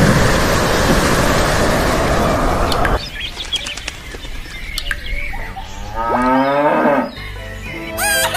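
Steady rain that cuts off suddenly about three seconds in, followed by a few bird chirps and then a cow mooing once for about a second.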